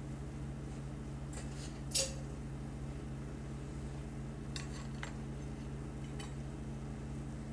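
A few light clinks and taps of kitchen utensils against dishes: a sharp one about two seconds in and a short cluster around five seconds. A steady low hum runs underneath.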